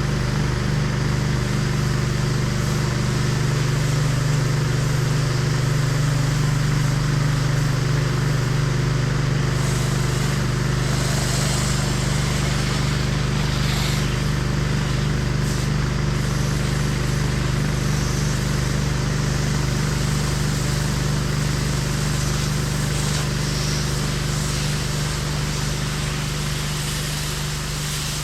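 Pressure washer's brand-new engine, at zero hours and in its break-in, running steadily under load, with the hiss of the high-pressure water spray over it.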